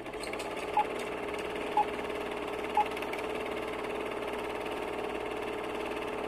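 Steady electronic drone with three short high beeps, one a second apart, in the first three seconds.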